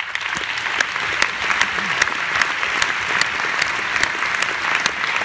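A large theatre audience applauding, a dense wash of clapping with individual sharp claps standing out.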